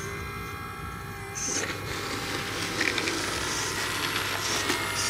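Hydraulic pump of a handmade 1/8-scale RC excavator whining steadily. From about a second and a half in there is crunching and scraping as its bucket digs into a mound of dry soil.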